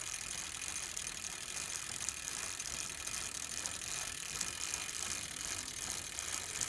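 Bicycle rear-hub freewheel clicking as the wheel coasts, a rapid, steady ticking.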